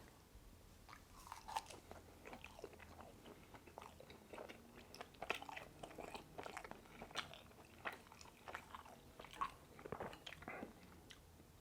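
Close-miked chewing of a pan-fried pork dumpling: an irregular run of short, sharp mouth clicks and crunches.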